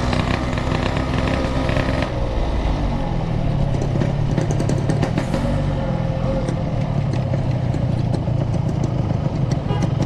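Yamaha RX-King two-stroke single-cylinder engine coming off the throttle, its pitch falling over about the first two seconds, then running steadily at idle as the bike stops.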